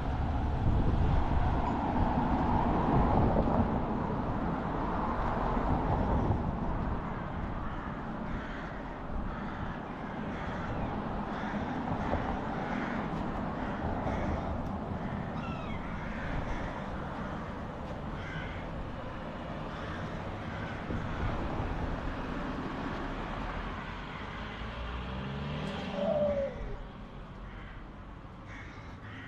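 Crows calling repeatedly over street ambience. A louder rush of passing traffic fills the first six seconds or so.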